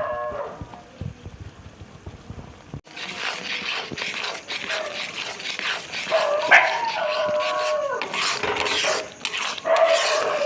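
A dog whining and yelping in several drawn-out calls, the longest lasting about two seconds, over a steady crackling hiss.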